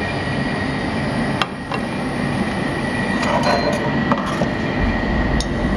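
Steady rushing background noise of a commercial kitchen, with a sharp knock about a second and a half in and a few light clinks of utensils and crockery a few seconds in.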